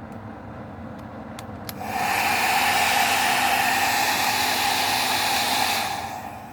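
Hair dryer switched on after a couple of faint clicks about two seconds in, blowing steadily, then shut off and winding down near the end.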